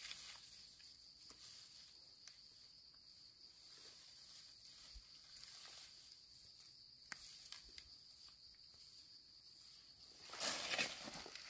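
Insects keep up a steady high buzz. Faint rustles and snips come from hands cutting a mushroom in the grass. About ten seconds in, louder rustling starts: footsteps pushing through tall grass.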